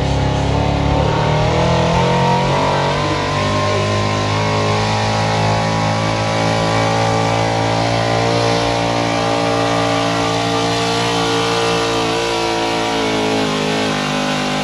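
A Dodge 4x4 pickup's engine runs at full throttle, pulling a weight-transfer sled in a truck pull. The revs climb over the first couple of seconds, then hold high and steady under the heavy load.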